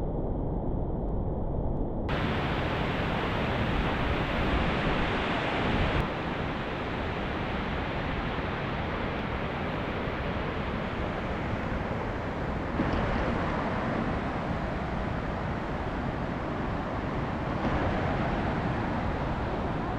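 Sols Creek Falls waterfall rushing, a steady full noise of falling water, with wind on the microphone. The sound shifts abruptly a few times where clips are cut together.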